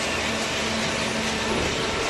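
Industrial cardboard shredding and baling machinery running steadily: a dense, even rushing noise with a constant hum whose pitch steps up near the end.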